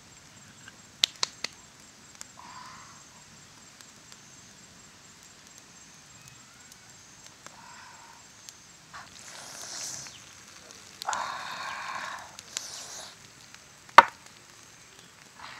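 Water poured from a cup onto a flat lava-stone cooking slab, splashing in short bursts, with a few sharp knocks of stone and wood between the pours.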